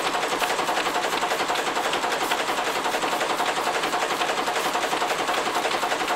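1929 Gardner 3J5 two-stroke reversible marine engine running, with a rapid, even mechanical beat.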